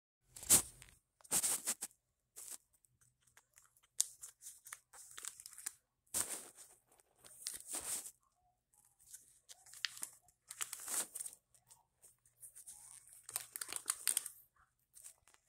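Clear plastic pocket pages of a trading-card binder crinkling and rustling as they are turned, in a string of short, irregular bursts.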